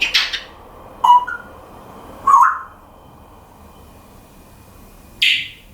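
African grey parrot calling in short separate bursts: a brief noisy call at the start, a short whistle about a second in, a squawk a second later, then a harsh hissing screech near the end.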